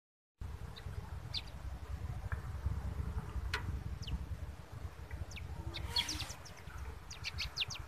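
Small birds chirping: scattered short, high calls, several in quick succession near the end, over a low steady background rumble.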